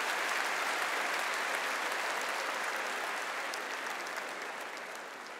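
Large arena audience applauding steadily, slowly fading toward the end.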